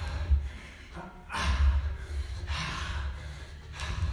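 A man breathing hard while doing skater jumps: loud gasping breaths, about one a second.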